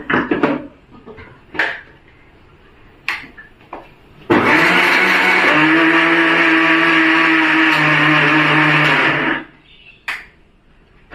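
Electric mixer grinder running for about five seconds, blending rice flour with raw papaya pieces and salt in its jar. It starts abruptly about four seconds in and cuts off a little after nine seconds, after a few short knocks.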